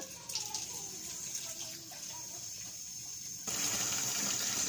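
Tap water running from a kitchen faucet into the plastic reservoir of a water filter pitcher, the flow getting louder about three and a half seconds in and stopping near the end as the tap is shut.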